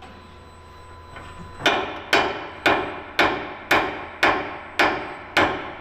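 Hand hammer striking a seized pin on the bridge's scissor cylinder mount: eight steady, evenly spaced blows, about two a second, beginning about a second and a half in, each with a short ring. The pin is not moving under the blows.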